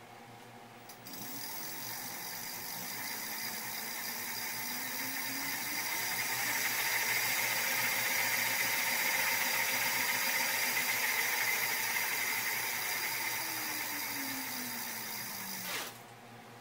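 Crystalyte X5404 direct-drive brushless hub motor spinning its wheel in the air, with an electric whine. It speeds up with a rising pitch over the first few seconds, runs at speed, then slows with a falling pitch and stops near the end.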